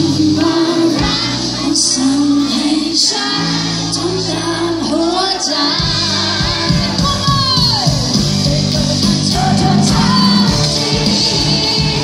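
Live pop band music with a singer's voice over it, played through a concert PA; the bass and drums settle into a fuller, steady beat about halfway through.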